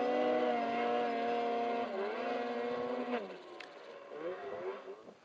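Snowmobile engine held at high, steady revs as it climbs a steep snow slope, with a brief dip about two seconds in; a little after three seconds the engine note drops and fades away.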